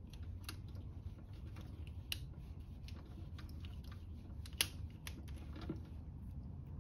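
Scattered small clicks and scrapes of a screwdriver and wire against a plastic screw terminal strip as a wire is fastened into it, the sharpest click about two-thirds of the way in, over a low steady hum.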